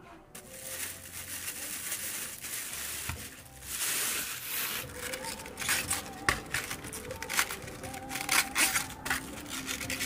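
Crinkling and crackling kitchen noises, turning into a dense run of sharp crackles and clicks from about five seconds in, over soft background music.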